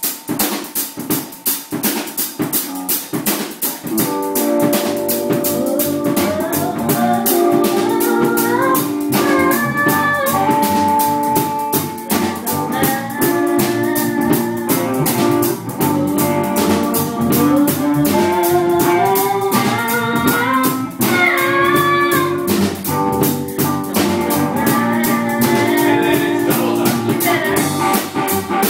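A small band playing: a drum kit keeps a quick, even cymbal and drum pattern, and about four seconds in guitar chords and a melody line join it and run on steadily.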